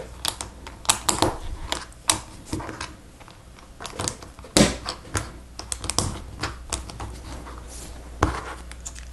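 Small plastic Lego Technic parts clicking as they are handled and pressed together: a string of irregular sharp clicks.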